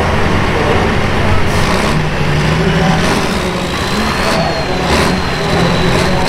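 Turbocharged International diesel pulling tractor revving hard as it launches against the sled. A thin, high whine comes in about halfway through and climbs in pitch.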